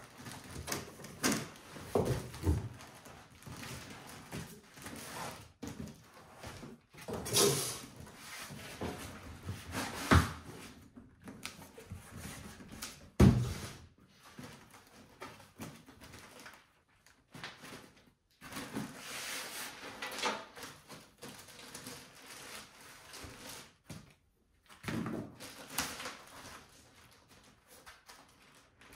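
Handling noises from unpacking a PC case: irregular knocks, clicks and thumps of the case and its panels, mixed with rustling swishes of the packaging. The loudest knock comes about halfway through.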